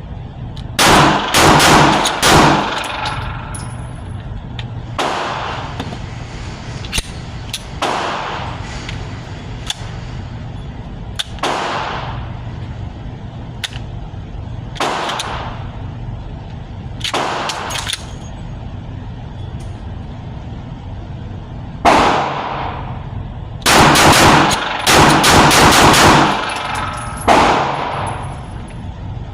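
Glock-clone pistol fitted with an FRT forced-reset trigger, firing 124-grain rounds. It fires short rapid strings of shots near the start and again near the end, with single shots every few seconds in between. The trigger does not run well on this ammunition.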